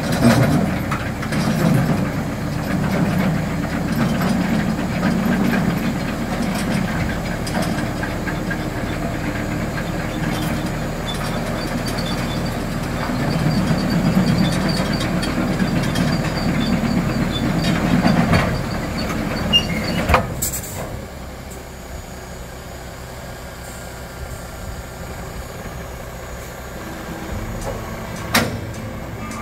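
Heavy dump truck and trailer working while the trailer's gravel load is moved onto the truck: a loud engine rumble with irregular clanks and knocks. About twenty seconds in the noise drops away sharply to a quieter steady engine hum, with one sharp knock near the end.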